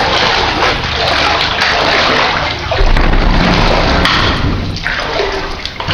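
Floodwater sloshing and splashing as a person wades through it, with a heavier surge of water about three seconds in.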